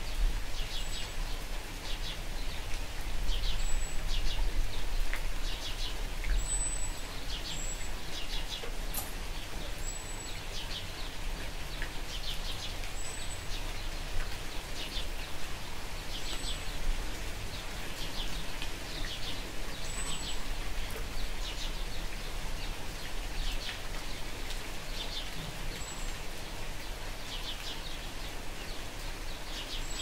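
Light, steady rain with birds chirping in short, quick series about once a second, and a thin high peep repeating every few seconds.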